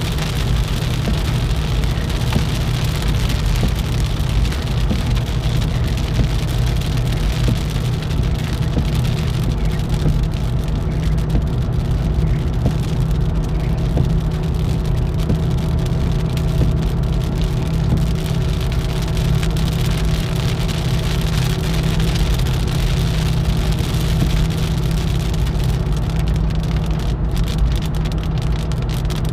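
Steady road and engine drone inside a car cruising at highway speed. Rain hits the windshield at first, and this thins out after the first several seconds.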